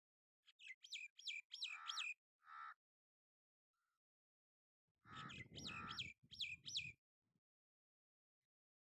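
Jungle babbler calls in two bursts, the second about five seconds in. Each burst is a quick run of four or so sharp, falling notes followed by harsher, rasping notes.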